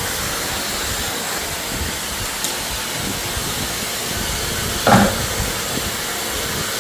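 Numatic James tub vacuum cleaner running with a steady hiss, with one short knock about five seconds in.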